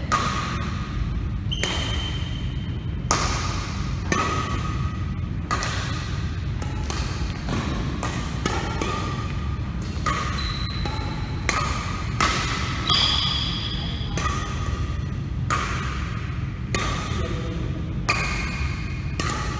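Badminton racquets striking a shuttlecock back and forth in a rally: a sharp crack every second or so, some with a short ringing ping, echoing in a large hall.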